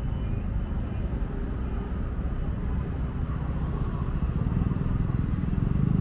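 City street traffic running steadily, a low vehicle rumble swelling in the second half, with faint voices of passers-by.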